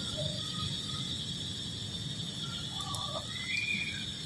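Steady high-pitched insect drone, with scattered short animal chirps and a brief rising squeal about three and a half seconds in.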